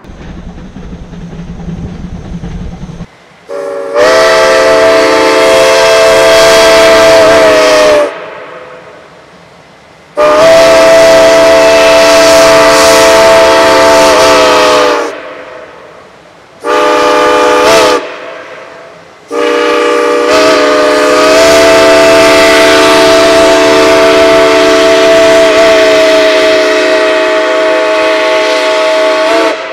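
Steam whistle of Shay No. 9, a 1923 Lima geared steam locomotive, sounding a chord of several notes in four blasts: long, long, short, long, with the last blast held about ten seconds. Long-long-short-long is the standard railroad grade-crossing whistle signal. Before the first blast there is a low rumble of the train running.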